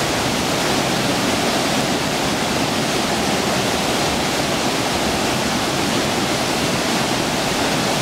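Waterfall plunging into a rock pool, a steady, even rush of falling water, the river running high with about twice its usual flow.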